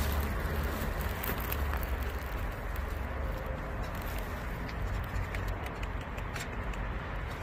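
A cat crunching dry kibble close to the microphone: scattered sharp crunching clicks over a steady low rumble.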